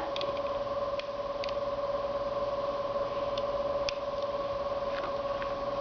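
A steady electrical hum, with a handful of faint, short clicks of Lego pieces being handled and pressed back into place.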